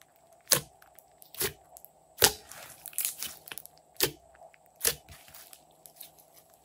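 Glossy slime being pressed and stretched by hand, giving about six sharp, wet popping clicks less than a second apart as air pockets in it burst.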